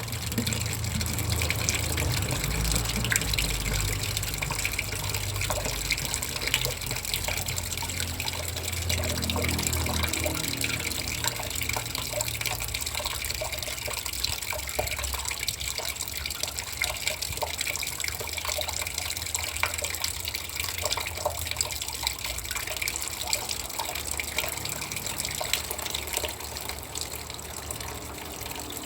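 Water gushing and splashing steadily into a bucket, with a heavy low rumble in the first twelve seconds or so that then thins out.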